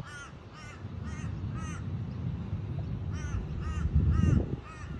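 A bird giving short, harsh calls, about two a second, in two runs with a pause between them. Wind rumbles on the microphone, loudest about four seconds in.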